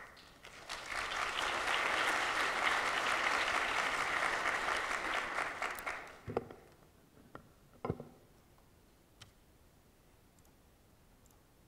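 Audience applauding, building within the first second and dying away after about five seconds, followed by two soft thumps.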